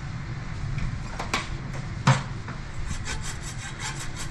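Hand hacksaw sawing metal in short back-and-forth strokes that quicken to three or four a second, cutting a slot into the broken-off piece stuck inside a stainless steel faucet so it can be twisted out. A sharp knock about two seconds in.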